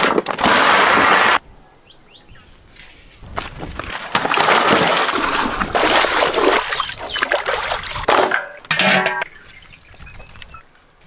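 Water splashing and sloshing as raw chicken pieces are washed by hand in a large vessel of water. It comes in two loud stretches, a short one at the start and a longer one through the middle, with quieter gaps between them.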